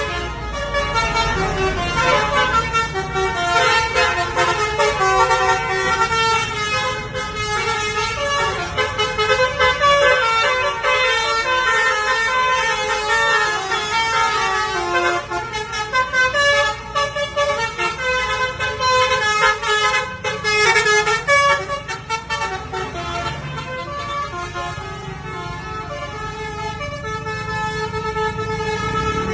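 Bus's multi-tone 'telolet' horn, Basuri type, playing a long melody of changing horn notes, a little softer for a few seconds before swelling again near the end.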